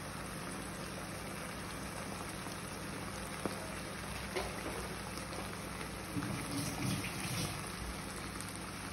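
Creamy chicken and mushroom sauce simmering in a nonstick pan on a gas burner: a steady, even crackling hiss with a few faint ticks.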